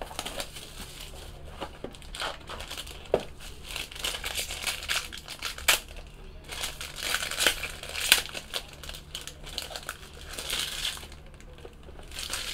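Clear plastic wrap and a foil pack wrapper crinkling and crackling in the hands as a sealed baseball-card box is unwrapped and the pack inside opened, in uneven bursts with scattered sharp clicks.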